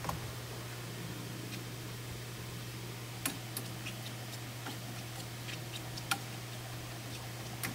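Plastic slotted spoon stirring ground meat and sliced onions in a nonstick skillet, knocking and scraping the pan in scattered light clicks, the sharpest about three and six seconds in, over a steady low hum.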